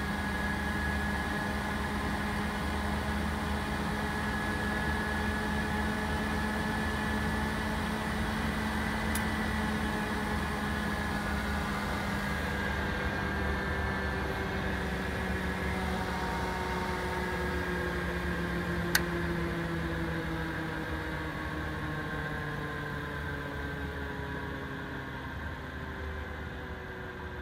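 Western Scientific Silencer H-103NA benchtop centrifuge running at about 3000 rpm, a steady motor hum with several whining tones. In the second half it spins down, the tones sliding lower and the sound fading as the tachometer drops toward 2000 rpm. There is a single sharp click about two-thirds of the way through.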